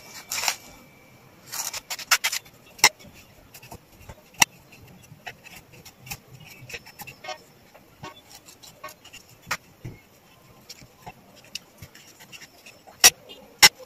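Kitchen knife cutting and peeling a taro root directly on a stone countertop: irregular sharp clicks and taps of the blade against the stone, a few of them loud, with quieter cutting between.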